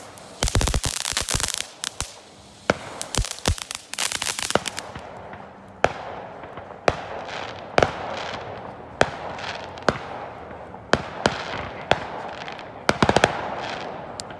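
Fireworks going off. Rapid crackling and popping for the first few seconds, then a string of sharp bangs about once a second with crackle between them, and a quick flurry of bangs near the end.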